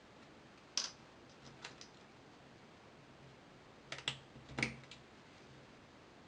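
Sharp clicks and light ticks of a smartphone and small hand tools being handled during a screen repair: one loud click about a second in, a few faint ticks, then a quick cluster of clicks a little past the middle.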